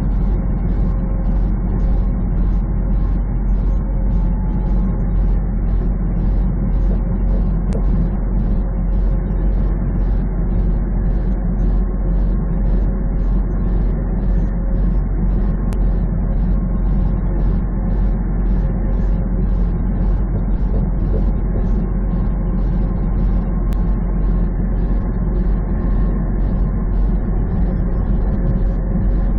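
Semi truck's engine and tyre noise heard from inside the cab while cruising at highway speed. It is a steady drone with an even hum.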